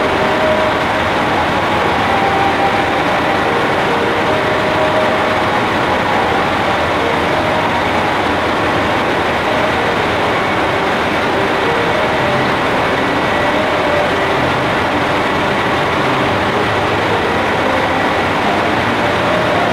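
Diesel railcar idling: a steady, unchanging engine noise.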